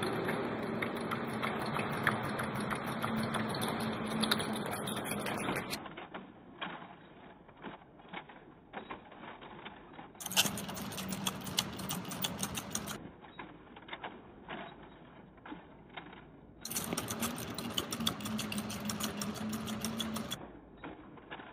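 MIT Cheetah quadruped robot running: a steady electric motor whine with rapid mechanical clattering from its legs and feet. This comes in three louder stretches, with fainter clatter between them.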